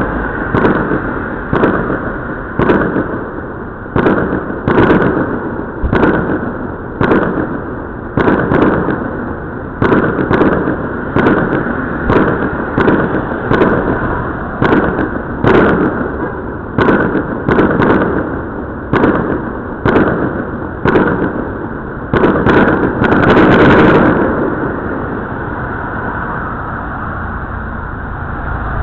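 Aerial firework shells bursting in a steady run of sharp bangs, about one to two a second, ending in a dense crackling volley about 23 seconds in, after which the bangs stop.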